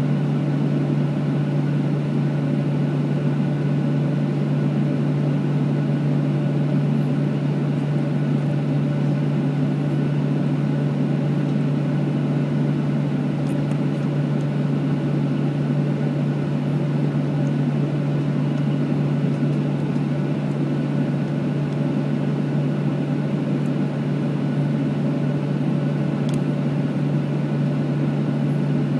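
Steady cabin noise inside a Boeing 737-800 taxiing, its CFM56 engines at idle, with a low steady hum under a hiss of air.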